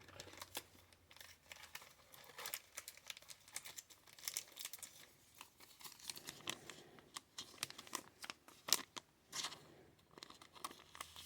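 Faint, irregular crinkling and soft clicks of trading cards and plastic being handled.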